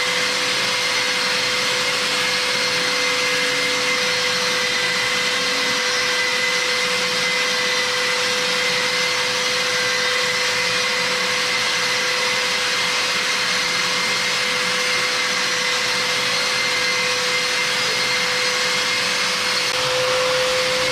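Rokamat Heron long-neck wall and ceiling sander running with its dust-extraction vacuum attached, a steady unchanging whine.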